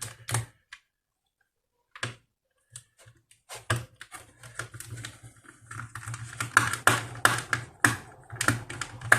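Small irregular clicks and taps of a screwdriver working the screws out of a laptop's plastic bottom case. There are a few scattered clicks at first, then a dense run of them from about three and a half seconds in.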